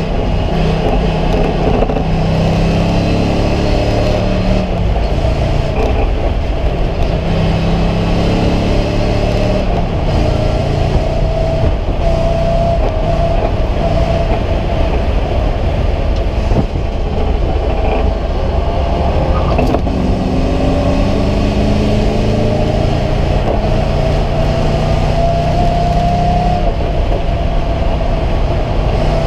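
Race car engine heard from inside its stripped, roll-caged cabin, running hard at high revs, its pitch climbing and dropping several times as the driver shifts and lifts. A thin whine rides above it, slowly rising over the second half.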